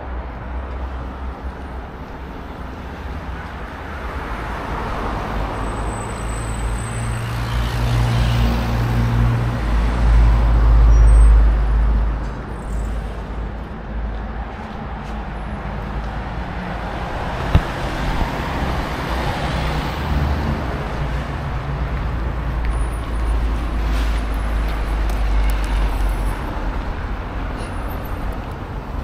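City street traffic: vehicles pass one after another in slow swells. The loudest pass, about ten seconds in, is a deep engine rumble. There is a single sharp click a little past halfway.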